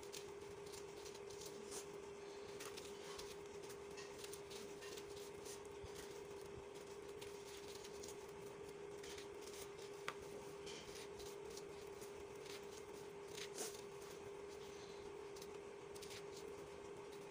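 Hands crumbling and squeezing dry, gritty dirt clumps, giving a stream of soft crackles and gritty crunches, with one sharper click about ten seconds in. A faint steady hum runs underneath.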